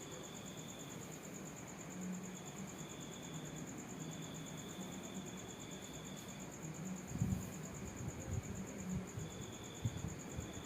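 Insects chirping steadily: a high, finely pulsing trill throughout, with a second, lower call that comes and goes in stretches of a second or two. A few dull low thumps come between about seven and ten seconds in.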